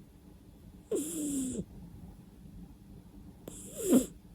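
A sleeping cat snoring: two snores a few seconds apart, each under a second, a breathy hiss carrying a whistling tone that wavers and falls in pitch.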